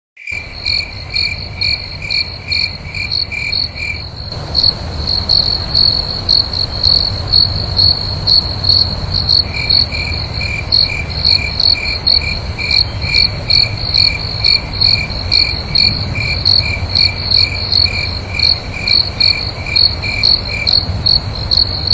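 Crickets chirping in steady, even pulses at two pitches, a higher one throughout and a lower one that drops out about four seconds in and returns near ten seconds, over a steady low rumble.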